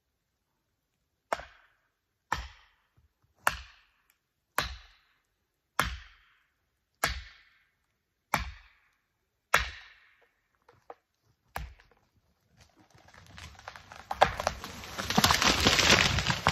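About nine heavy blows, roughly one a second, each ringing out briefly, typical of a felling wedge being driven into the back cut of a large tree. About thirteen seconds in, a swelling rush and crackle of the tree going over and falling through branches, loudest near the end.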